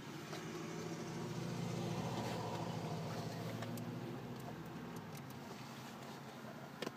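A vehicle's engine hum rises over the first couple of seconds and fades away by about five seconds in, as a car passing by; a few light clicks, with one sharper click near the end.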